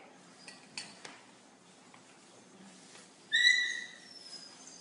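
Stainless-steel dog food bowl knocked once, giving a sudden bright ring that dies away within about half a second, a little past the middle, after a couple of faint clicks near the start.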